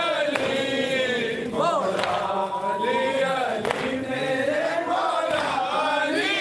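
A group of men chanting a noha, a mourning lament sung together with long, wavering held notes.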